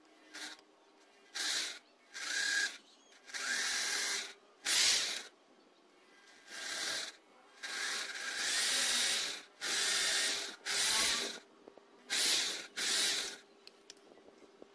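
Small handheld Krisbow corded electric drill with a thin bit run in about a dozen short bursts, each under about a second, boring a hole in a small piece of bamboo held in the fingers. The bursts stop shortly before the end.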